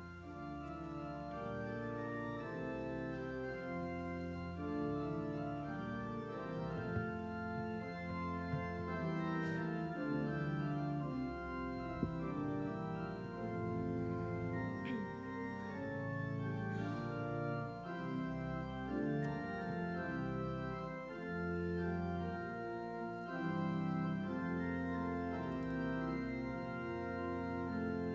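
Church organ playing a hymn introduction, sustained chords moving steadily from one to the next, before the congregation begins to sing.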